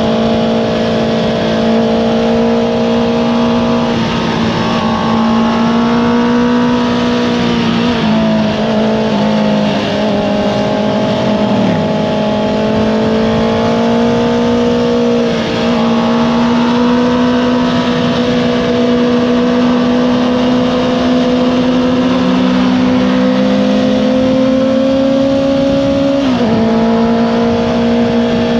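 Honda CBR650R inline-four engine with an Akrapovič exhaust, running hard under way. Its pitch climbs gradually and drops sharply several times, the last drop near the end.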